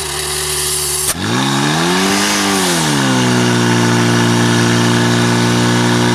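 Portable fire pump's engine running, then throttled up about a second in: its pitch jumps, rises and dips once, and then holds at a high steady speed as the pump drives water into the attack hoses.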